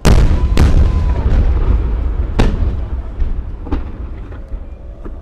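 Aerial firework shells bursting: a loud boom right at the start, then three more booms in the next four seconds and a faint one near the end, with a low rolling rumble of echo between them that slowly dies away.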